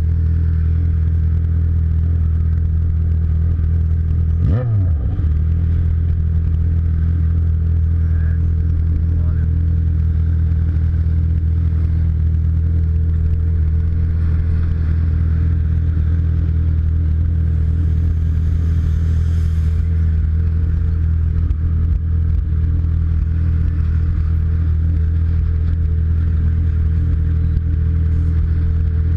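Red Jaguar XJ6's engine idling steadily, a deep even note with no revving, and a brief falling tone about four and a half seconds in.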